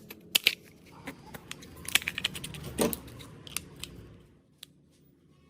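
Irregular light clicks and taps, a dozen or more, that stop about four seconds in.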